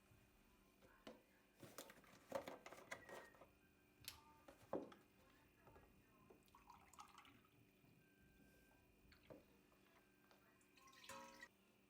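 Faint kitchen work sounds: scattered light clicks and knocks, with a short pitched squeak near the end.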